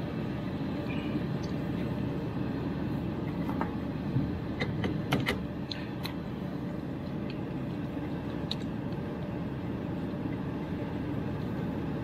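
Scattered sharp metallic clicks from an eccentric cone flaring tool being turned by hand on a copper refrigerant line, clustered a few seconds in with one more later, over a steady low rumble.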